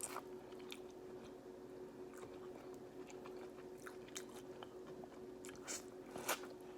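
Close-miked mukbang eating: a person chewing seafood-boil food, with scattered short mouth clicks and bites, two louder ones near the end. A faint steady hum runs underneath.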